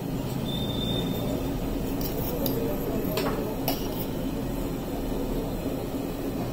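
A few light clinks of dishes or cutlery, clustered between about two and four seconds in, over a steady background hum.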